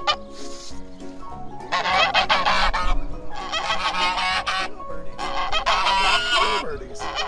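Domestic geese honking in repeated harsh bouts, with short pauses between them.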